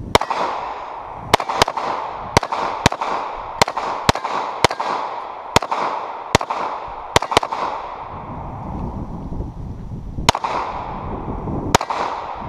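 Walther PPQ M2 9mm pistol firing fourteen shots in quick succession, mostly about half a second to a second apart. A pause of about three seconds comes before the last two shots.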